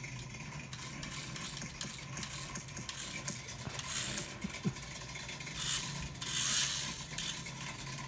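Shell Motorsport Collection BMW M4 toy RC car's small electric drive motor whirring in bursts as it is driven across a tiled floor, loudest about six to seven seconds in, with one small click midway.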